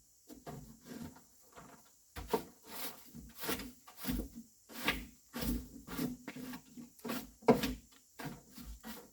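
Pieces of firewood being handled and stacked, an irregular run of hollow wooden knocks and clatters about one or two a second, the sharpest one about seven and a half seconds in.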